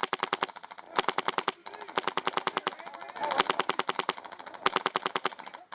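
Airsoft electric guns firing on full auto: rapid trains of sharp snapping shots in about five bursts, with short pauses between them.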